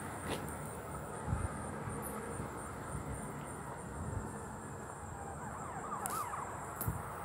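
Steady outdoor background noise with a low rumble, broken by a few soft thumps and a brief warbling tone about six seconds in.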